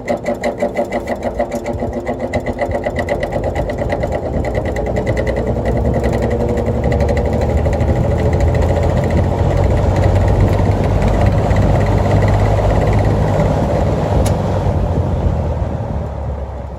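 1950s General Electric box fan motor starting up: a fast rhythmic throb that quickens and smooths into a steady loud hum, growing louder, then fading near the end. The motor's bearing has play, which makes the motor extremely loud.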